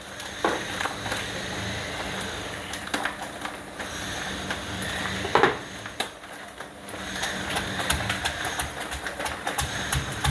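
Steady low hum with scattered light knocks and clicks; near the end a stone pestle starts knocking in a stone mortar (cobek) holding chilies, shallots and garlic, as they begin to be pounded into a spice paste.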